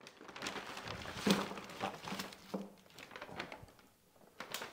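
Paper shopping bag and plastic-wrapped art supplies rustling and crinkling as they are unpacked, with scattered light taps of items set down, quieter for a moment near the end.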